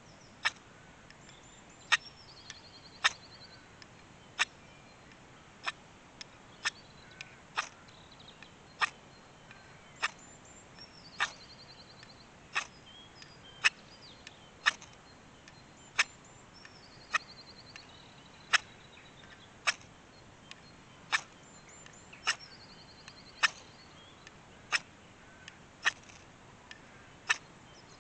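A knife blade stroked hard down a firesteel (ferrocerium rod) over a steel pan, giving short, sharp scrapes about once a second. Faint bird trills sound a few times in the background.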